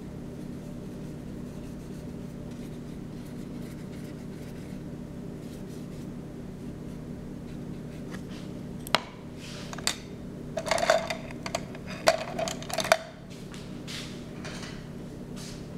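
Paintbrush on paper: a cluster of sharp taps and short scratchy strokes in the second half, with a few fainter strokes near the end, over a steady low hum.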